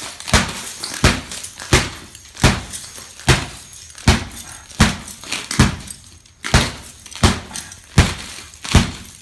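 Hammer striking laminated hurricane glass again and again, about a dozen blows at a steady pace of roughly one every 0.8 s. The cracked pane holds together under the blows instead of breaking through.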